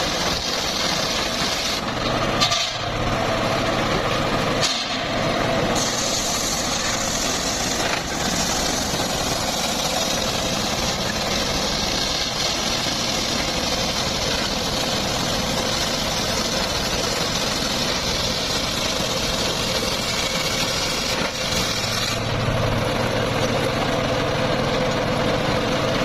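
Homemade engine-driven circular sawmill running steadily, with short dips about two and five seconds in. A brighter high hiss joins from about six seconds in until about twenty-two seconds.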